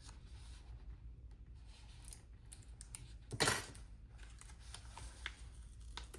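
Sticker sheets and planner pages being handled: scattered light clicks and taps, with one brief, louder papery rustle a little past halfway.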